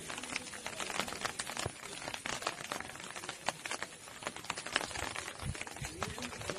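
Rain pattering on a hard surface: a dense, irregular run of small taps and clicks.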